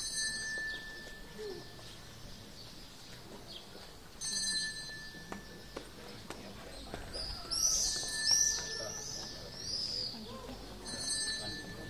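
A short electronic ringing tone repeats four times, about every three and a half seconds, over a low murmur of an outdoor crowd. Between the third and fourth rings, about seven seconds in, a burst of high chirping bird calls is the loudest sound.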